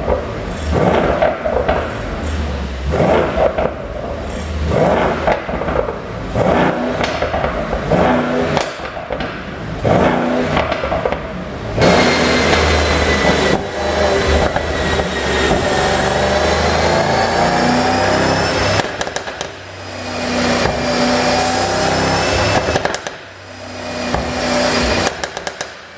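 Mercedes-AMG E63 4Matic's twin-turbo V8 with an exhaust pop-and-crackle tune: for about the first twelve seconds a run of short rev bursts with sharp pops between them, then a held engine note whose pitch rises and falls, with pops again as the revs drop near the end.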